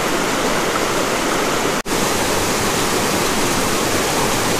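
Water of a small mountain river rushing steadily over rocks, heard close by. The rush breaks off for an instant about two seconds in.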